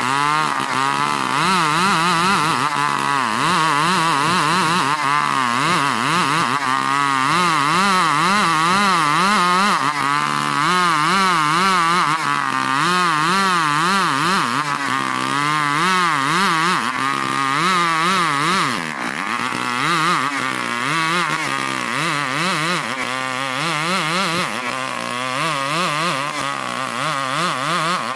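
STIHL 070 two-stroke chainsaw running under load, ripping a plank of ulin (Bornean ironwood) lengthwise. The engine pitch rises and falls over and over as the chain bites, and the level eases off briefly about two-thirds of the way through.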